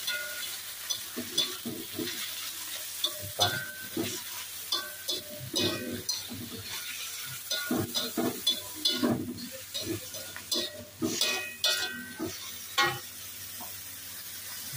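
Metal spatula scraping and clanking irregularly against a metal wok as mangrove clam meat and aromatics are stir-fried, over a steady sizzle of hot oil.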